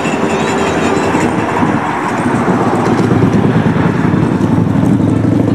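Wind buffeting the camera microphone: a loud, steady, rough low rumble.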